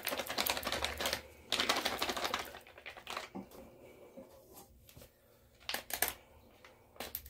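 Plastic dog-food pouches crinkling and clicking as they are handled and squeezed over a stainless steel dog bowl. There are two dense crackly bursts in the first two and a half seconds, then a few single clicks.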